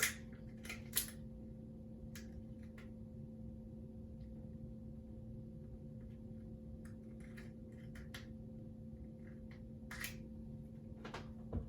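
Scattered light clicks and taps of hands handling the plastic cap and seal of a Ramune marble-soda bottle, with a few sharper clicks near the start and near the end, over a faint steady hum.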